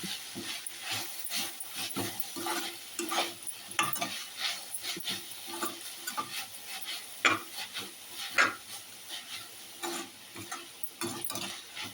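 A spoon stirring and scraping a vegetable bhaji frying in a pan, with irregular clicks and knocks against the pan over a light sizzle; two sharper knocks come about seven and eight and a half seconds in.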